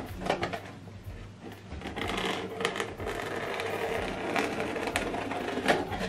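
A knife cutting through packing tape and cardboard on a shipping box: a continuous rough scraping from about two seconds in, ending with a knock near the end as the box is handled.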